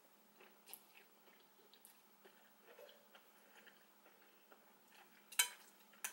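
Faint mouth sounds of someone chewing a mouthful of instant ramen noodles, with small wet clicks scattered through. A short, sharp noise about five seconds in is the loudest sound.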